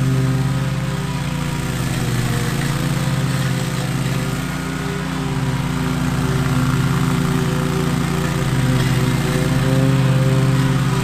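Lawn mower engine running steadily at a constant speed.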